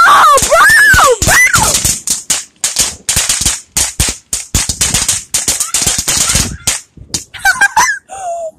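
Firecrackers going off in a rapid, irregular run of sharp bangs that stops about seven seconds in.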